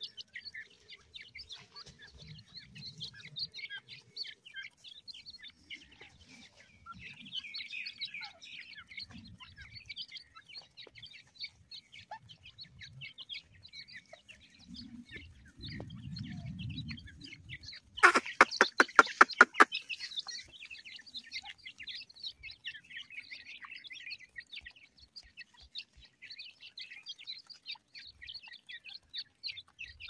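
A flock of young francolins chirping steadily in many short high peeps while pecking at grain. About two-thirds of the way through, a loud rapid rattle of about a dozen sharp pulses lasts roughly two seconds.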